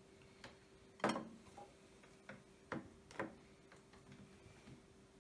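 Scattered light clicks and knocks of small hand stamps being handled and pressed onto leather liner pieces, the loudest about a second in and a few more between two and three and a half seconds, over a faint steady hum.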